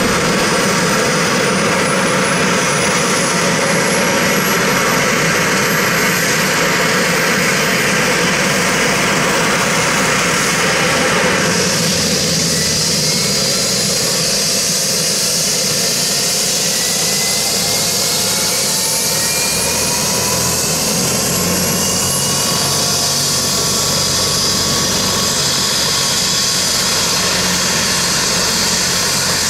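Agusta A109S helicopter's twin turboshaft engines running on the ground, a steady turbine whine that climbs slowly in pitch as they spool up. About twelve seconds in, a louder high hiss comes in and further whines begin rising in pitch.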